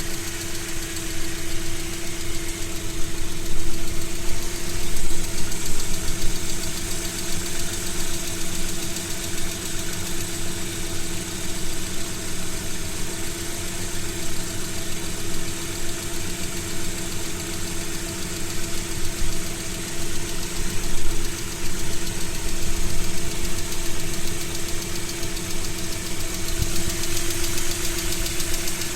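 ZMZ-406 inline-four petrol engine idling steadily from cold, with a knock running through the idle.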